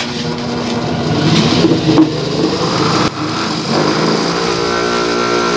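Electric bench buffing machine running with a motor hum that wavers at first and settles to a steady pitch in the last second or so.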